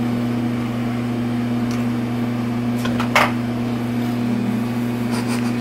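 A steady low mechanical hum, with one short sound about three seconds in.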